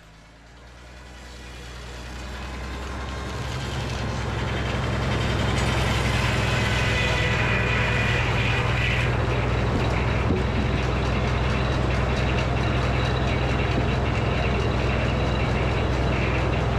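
Frick circular sawmill and its engine running: the sound builds up over about five seconds, then holds steady as a low engine drone with a higher machine whine over it.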